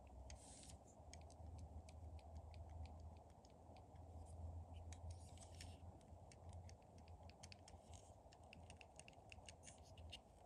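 Small plastic LEGO parts clicking and knocking faintly as they are handled and fitted together, in many irregular clicks with a few brief scraping rustles.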